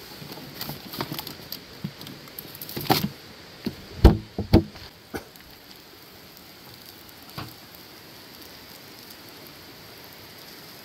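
Hands rummaging in a plastic cooler: a string of knocks and clicks among food packaging over the first five seconds, the loudest about four seconds in. Under it and after it, the steady rush of a creek running close by.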